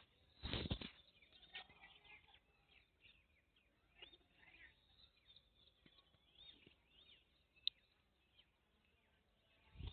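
Quiet, with faint birds chirping repeatedly in the background. A short knock comes just after the start and a single sharp click late on.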